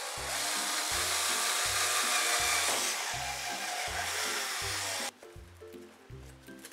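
Cordless drill running steadily as it bores into the end cap of a paper-covered tube. It stops suddenly about five seconds in.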